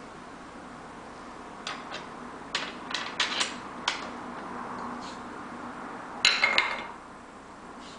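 Light clicks of the white plastic clamps being handled on a heat-set machine's catheter tray, several in quick succession, then a louder clatter about six seconds in as a black cover plate is set down on the tray. A low steady hum runs underneath.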